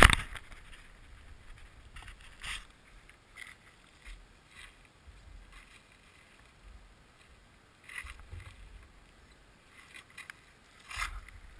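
A loud knock of the GoPro camera being handled right at the start. After it, mostly quiet outdoor background with a few faint, short rustling or crunching sounds scattered through.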